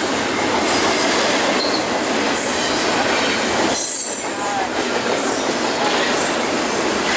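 BNSF double-stack container cars rolling past at speed: a steady, loud rush of steel wheels on rail, with short high-pitched wheel squeals and a brief dip in the noise around the middle.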